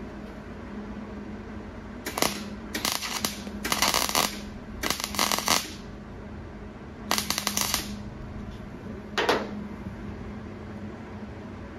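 MIG welder laying tack welds on thin sheet-steel hood panel: six short bursts of crackling arc and spatter, each under a second, the first about two seconds in and the last near nine and a half seconds.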